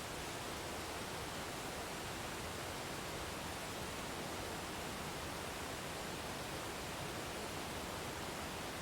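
Waterfall rushing in an even, unbroken hiss with no changes.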